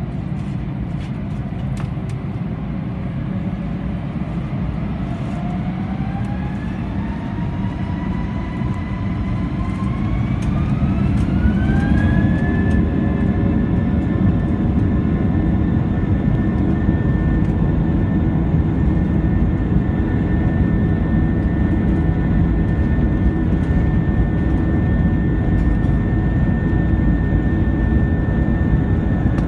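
Airbus A321's IAE V2500 turbofan engines spooling up to takeoff thrust, heard inside the cabin: a whine climbs steadily in pitch for about ten seconds and grows louder. It then holds as a steady high whine over a heavy low rumble as the jet accelerates down the runway.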